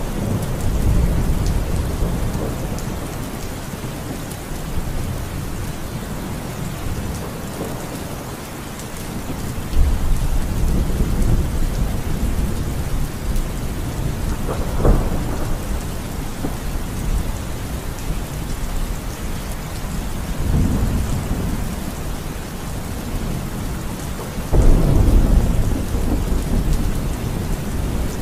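Heavy rain pouring down steadily, with deep low rumbles that swell suddenly about ten seconds in and again near the end.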